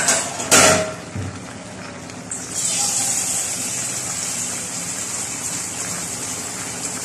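A short clatter about half a second in, then, starting suddenly about two seconds in, a steady rush of running water.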